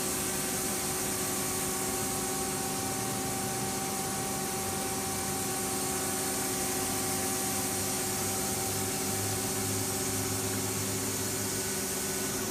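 Mighty Viper VT-25B CNC turning centre powered up and running: a steady machine hum with several constant whining tones over a hiss.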